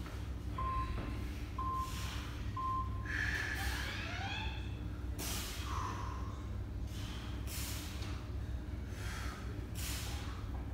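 Three short electronic beeps about a second apart from a gym interval timer, then a string of sharp, forceful breaths about once a second from exercise.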